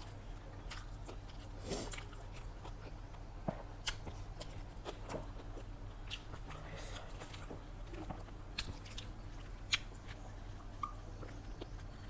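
A person chewing and biting into chicken biryani close to the microphone: irregular wet smacks and small clicks of the mouth and food, a few every second or two.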